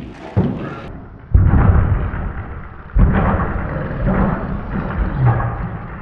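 Loaded Olympic barbell with bumper plates thudding and clanking through repeated hang high pulls, four heavy thuds in a few seconds, the loudest about a second and a half in and at three seconds, each with a rumbling echo in the hall.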